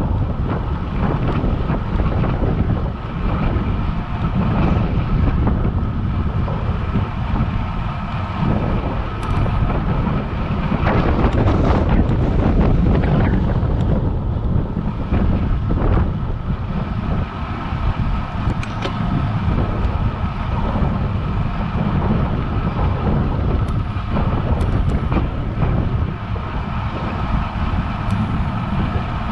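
Steady wind noise buffeting a GoPro Hero7 Black's microphone on a moving road bike, a constant low rush.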